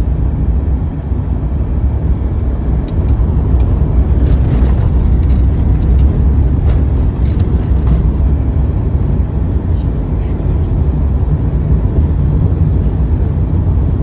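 Steady low rumble of a moving vehicle's engine and road noise, heard from inside the vehicle.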